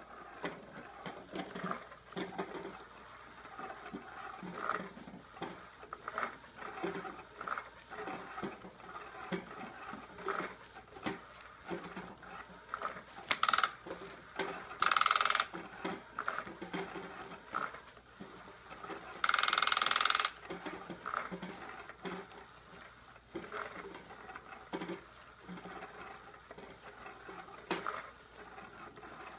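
Battery-powered cat toy whirring as its wand darts around under a nylon cover, giving an irregular patter of rustles and clicks. Two short, loud bursts of noise come about halfway through.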